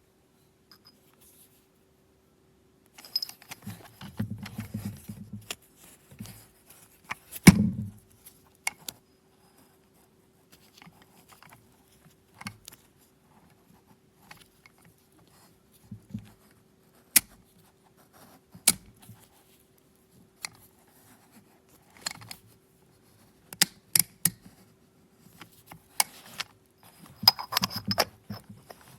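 Manual coffee grinder being handled: sparse clicks, taps and short metallic rattles, with a sharper knock about seven seconds in. A faint steady hum runs underneath.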